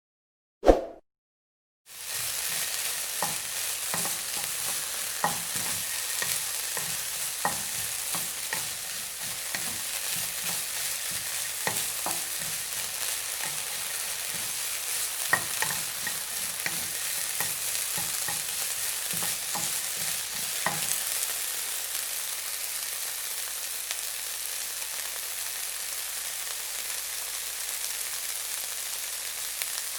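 Food sizzling in a frying pan: a steady frying hiss with scattered pops and crackles, starting about two seconds in. The pops grow fewer after about twenty seconds. A single short thump comes just before the sizzling begins.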